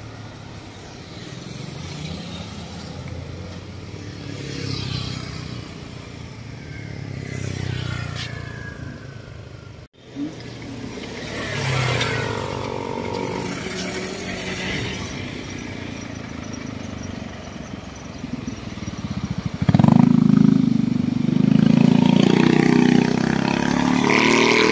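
Road traffic passing close by: cars and a motorcycle driving past, with engine sounds coming and going. The loudest part is a vehicle's low engine sound close by over the last few seconds.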